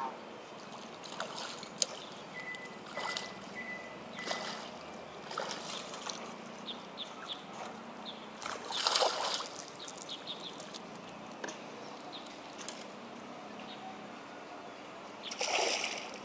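Water splashing at the pond surface in short bursts, the loudest about nine seconds in and another near the end, from a hooked tilapia thrashing as it is played on a long pole. Faint small clicks in between.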